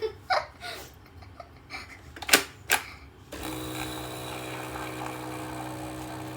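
A few sharp clicks and knocks, then about three and a half seconds in the Nescafé Gold Blend Barista coffee machine starts running with a steady electric hum.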